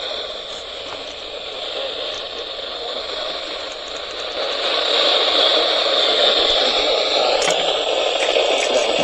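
Radio receiver hissing with static on an open channel, with no voice. The hiss grows louder about halfway through, and there is a faint click near the end.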